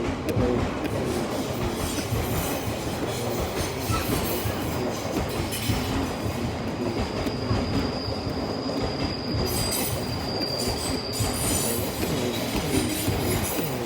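Train passing close by, its wheels rumbling and clattering on the rails. A thin, high wheel squeal joins about halfway through.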